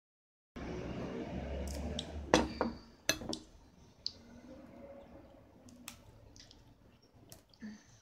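Eating at a plate: cutlery clicks against the dish a few times, loudest around two to three seconds in, then fainter small clicks and squelchy chewing sounds.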